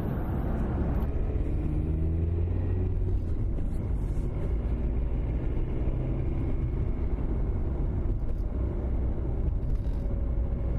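Ford Transit Custom van driving at road speed, heard from inside the cabin: a steady low engine and tyre rumble, the engine note rising a little in the first few seconds.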